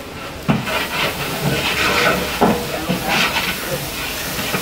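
Ginger-garlic paste and chilli powder sizzling as they hit hot oil and fried onions, stirred with a large slotted metal ladle in a big aluminium pot, the ladle scraping the pot in repeated strokes.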